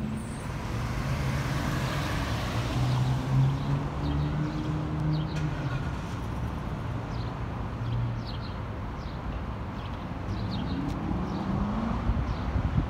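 Ford Super Duty fire truck's engine running at low speed as it creeps out of the station bay, with a steady rumble underneath; the engine note rises near the end.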